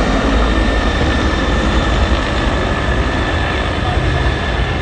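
Formation of Bell 412 and Bell 212 twin-turbine utility helicopters flying past, a steady loud rotor rumble with a thin, steady high whine above it.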